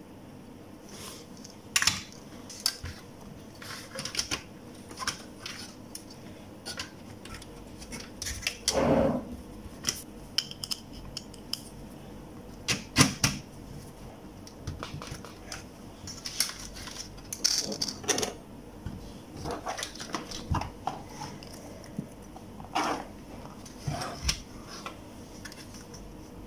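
Scattered clicks, taps and knocks of a satellite receiver being put back together by hand with a screwdriver, as its circuit boards and plastic case are handled, with louder knocks about a third of the way and halfway through.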